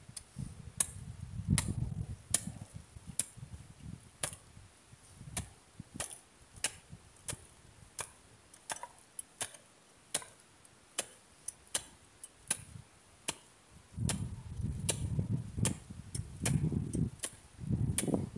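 Sharp, irregular clicks and taps, one or two a second, from a hand tool working at the ground. A low rumbling noise comes in during the first few seconds and again near the end.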